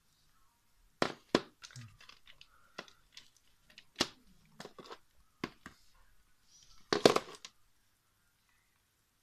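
Close handling noises: a string of sharp clicks and knocks with some crackling, loudest in a dense burst about seven seconds in, as a smartphone and its charging cable are handled.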